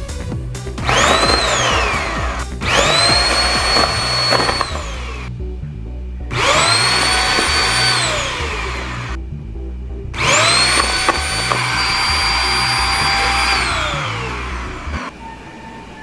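Queen Made Triple cordless handheld vacuum switched on and off four times while sucking up paper scraps. Each time the motor whines up to speed, runs steadily for one to three seconds, then winds down with falling pitch.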